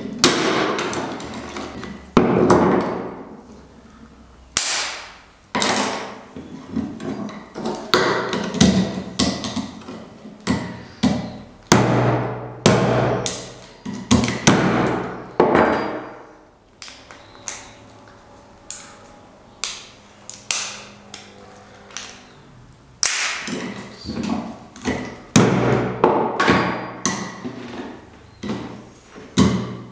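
A machete-like blade chopping a plastic computer mouse apart on a board: repeated irregular sharp strikes, with a quieter stretch of fewer knocks in the middle.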